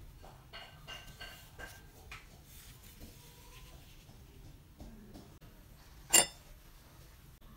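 Cast-iron meat grinder parts being handled on a wooden workbench: soft handling noises and light metal clinks, with one sharp, ringing metal clink about six seconds in.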